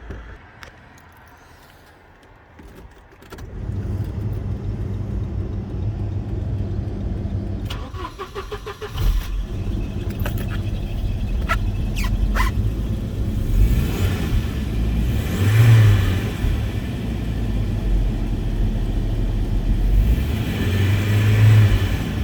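Volvo 940 estate's turbocharged four-cylinder petrol engine starting first time about three seconds in and running steadily, revved briefly twice, near the middle and near the end.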